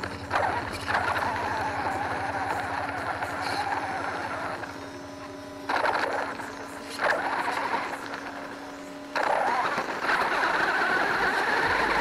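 Whirring from an electric RC monster truck's motor and drivetrain, picked up by the camera mounted on the truck. It starts and stops abruptly in spurts over a steady electrical hum.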